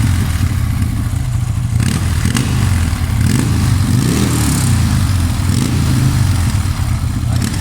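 Buell motorcycle engine running steadily, with a brief rise and fall in engine speed about four seconds in.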